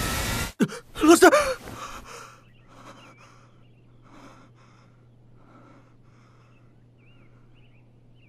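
A rushing blast cuts off abruptly about half a second in. A young man then gives a loud, gasping cry as he wakes with a start, followed by several faint heavy breaths. Faint high chirps sound now and then over a low steady hum.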